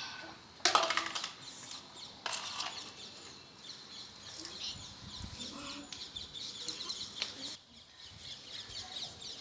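Fingers rubbing and parting hair close to the microphone, with two sharp crackles about a second and two seconds in. Small birds chirp quickly and repeatedly in the background through the second half.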